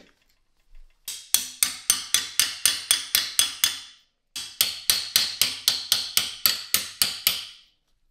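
A hammer tapping a steel punch held against the rusty steel trigger guard of a Carcano rifle clamped in a bench vise. Two runs of about a dozen sharp metal taps each, about four a second, with a short break midway.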